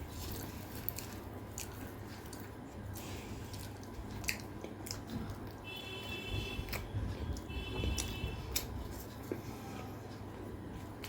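Close-miked chewing and mouth sounds of a person eating pea-stuffed kochuri with curry: soft wet smacks and scattered clicks.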